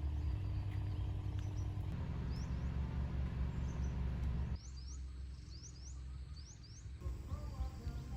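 Small birds chirping in short, high, rising notes, several in quick succession past the middle, over a steady low rumble.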